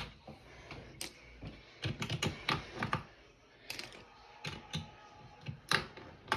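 Keycaps being picked off a keyboard one after another: irregular sharp plastic clicks and snaps, with a quick run of them around two seconds in and a loud one near the end.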